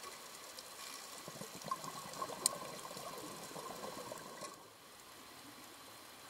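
Faint underwater ambience: a crackling hiss of water with scattered small clicks and one sharper click about two and a half seconds in. It turns quieter about four and a half seconds in.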